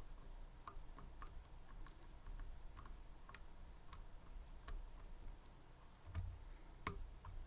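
Faint, irregular metallic clicks of a pick and tension tool working the pin stack of a Medeco M3 high-security lock, with a soft low bump about six seconds in.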